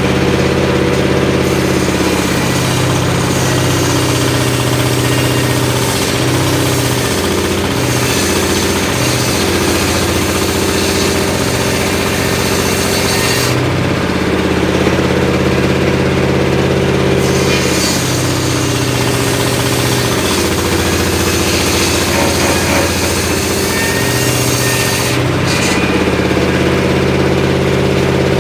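The engine of a homemade circular sawmill runs steadily, its note sagging several times as the blade bites into mahogany. A high hiss of sawing sits over it and drops away for a few seconds around the middle.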